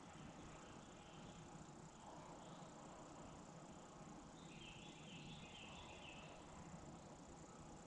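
Near silence: faint outdoor night ambience, with a short run of faint high chirps around the middle.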